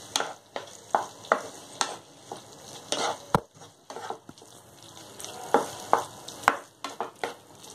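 Wooden spatula stirring and scraping spiced potatoes and peas in a non-stick frying pan: a run of uneven scrapes, with a quieter spell in the middle, over a light sizzle of the masala frying.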